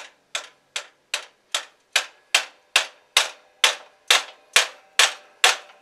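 Small hammer giving steady light taps on a greased pin, driving it into the pivot of a Shopsmith scroll saw's arm, about two and a half taps a second. Each tap has a short metallic ring, and the taps grow heavier after about two seconds.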